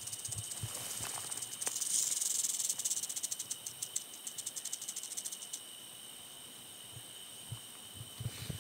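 Western diamondback rattlesnake rattling its tail softly: a light, fast buzz, almost like a cricket. It stops about five and a half seconds in.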